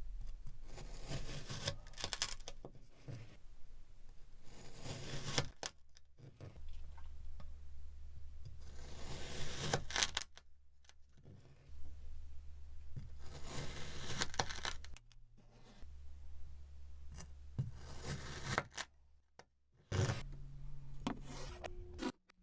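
Kinetic sand being cut with a knife again and again, each slice a crunchy, scraping rush of grains lasting a second or two, with short pauses between cuts.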